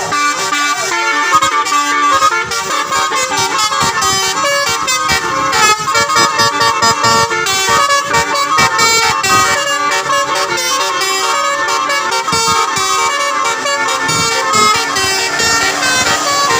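Telolet-style musical air horn playing a fast melody of short notes that step up and down in pitch, without a break.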